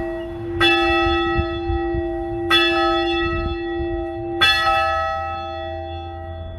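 A church bell tolling slowly: three strikes about two seconds apart, each ringing on with a long hum until the next. It is a memorial toll for the dead.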